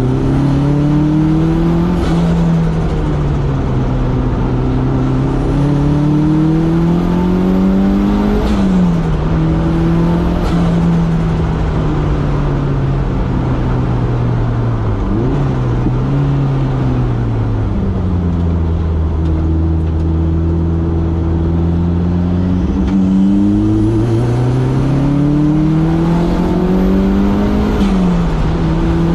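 Toyota MR2's swapped 3S-GTE turbocharged four-cylinder engine revving hard. The pitch climbs and drops sharply again and again, with a short burst of noise at several of the drops, and a faint high turbo whine that rises and cuts off. Around the middle the engine holds a lower, steadier note for a few seconds before climbing again.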